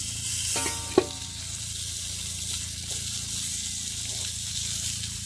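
Whole tilapia sizzling as they grill on a stove-top grill plate. A brief scrape ends in a sharp click about a second in.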